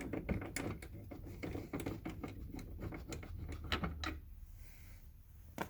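Hand ratchet driving a T30 Torx bit, clicking in quick irregular runs as a door-handle bolt is backed out. The clicking thins out after about four seconds, with one sharper click near the end.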